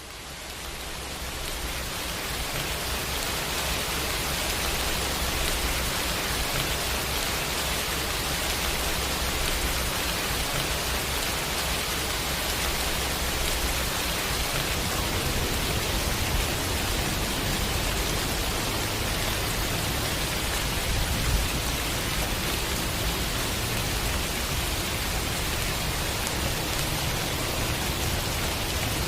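Steady, dense rainfall, a continuous even hiss of drops that fades in over the first few seconds and then holds level.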